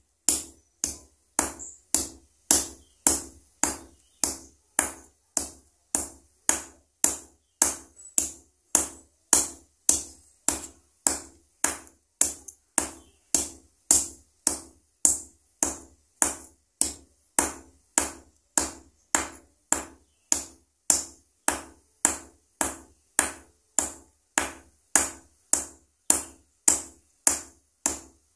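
Steel-headed hammer pounding a dried cattle leg tendon on a steel anvil plate, striking evenly at about two blows a second. Each blow flattens the tendon and breaks it apart into loose sinew fibres for backing a composite bow.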